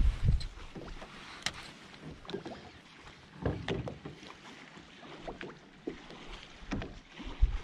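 Small waves lapping and slapping against the hull of a small boat, with scattered light knocks and splashes at irregular intervals.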